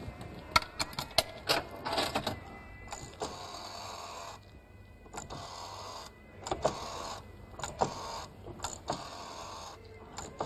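Rotary dial of a wall-mounted payphone being dialled. It starts with a few sharp clicks, then the dial whirs back several times, each return about a second long with short pauses between digits.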